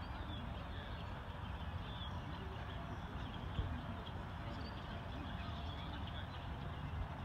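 Open-air background noise: a steady low rumble with a light hiss and faint, scattered distant sounds, with no single event standing out.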